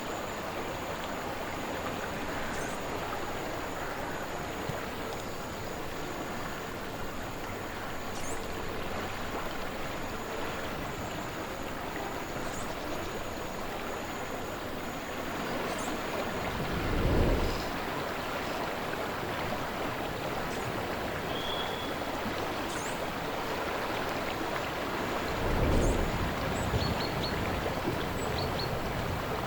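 Slow river water flowing steadily. Wind rumbles twice, about halfway through and again near the end.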